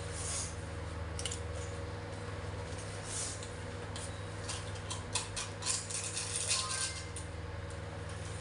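Cooking oil heating in a nonstick wok, giving off small crackling pops that cluster about five to seven seconds in, over a steady low hum.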